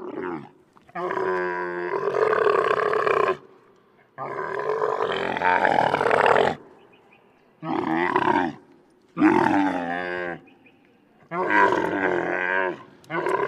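Camel grunting: a run of loud calls with short pauses between, the first two long, more than two seconds each, the later ones about a second.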